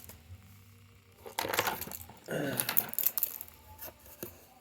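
Packaging of a replacement tablet screen being handled and unwrapped: short crinkling rustles with a few light clicks and taps.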